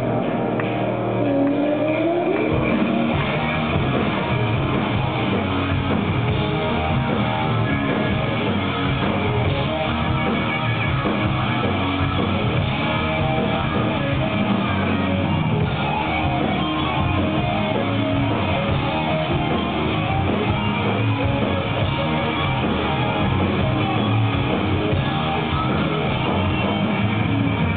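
Stoner rock band playing live: loud electric guitars and drums in a steady, dense wall of sound, with a guitar note sliding up about two seconds in.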